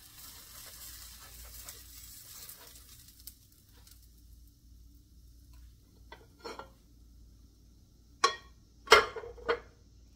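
A grilled cheese sandwich sizzling as it fries in butter in a nonstick skillet; the sizzle dies away about three seconds in. Near the end come a few sharp clatters of spatula, plate and knife, the loudest sounds.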